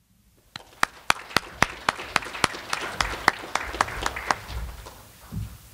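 Audience applause, with one person's hand claps close to the microphone standing out as sharp, evenly spaced claps, about four a second. It starts about half a second in and fades out near the end.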